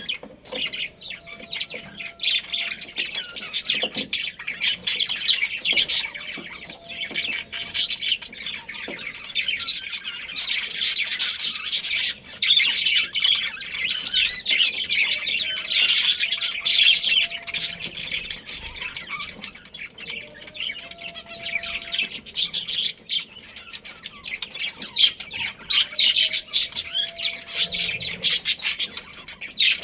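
A colony of budgerigars chirping and chattering continuously, many birds calling over one another in a dense, high-pitched stream.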